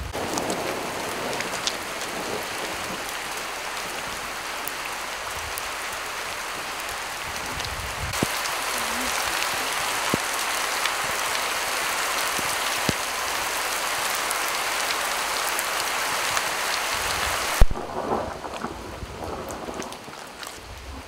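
Steady heavy rain falling on roofs and a wet street, its sound changing abruptly twice where takes are spliced, with a sharp click at the second splice. Low rumbles of thunder come in near the end.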